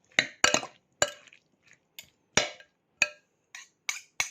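A utensil clinking against a bowl as a salad is stirred and tossed: about a dozen irregular sharp clinks, each with a short ring.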